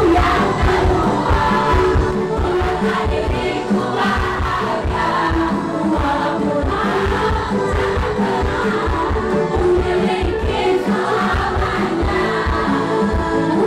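Live pop song: a female singer on microphone with a packed audience singing along loudly in chorus, over a steady beat.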